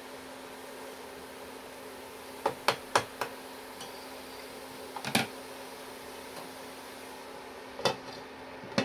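Kitchen sounds over a frying pan of cabbage and carrots: a steady hum and hiss, broken by a handful of sharp knocks. Four come close together about two and a half seconds in, another near the middle, and single ones near the end.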